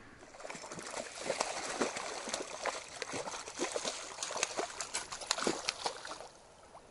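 A fish splashing and thrashing at the water surface beside an inflatable boat: a run of irregular sharp splashes that dies down near the end.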